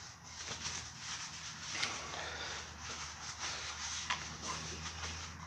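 Fork tube of a motorcycle front fork being wiped clean by hand: faint, irregular rubbing with a few light clicks, over a steady low hum.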